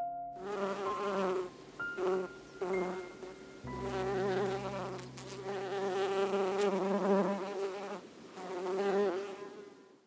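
Honey bees buzzing, a wavering, many-voiced buzz that swells and dips several times and fades out at the end.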